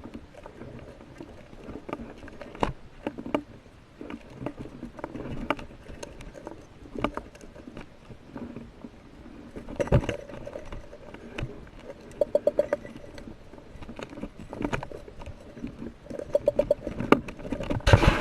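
Underwater sound from a spearfishing dive heard through a camera housing: scattered clicks and knocks over a low rumble, with two quick rattling runs of clicks, one about twelve seconds in and one near the end.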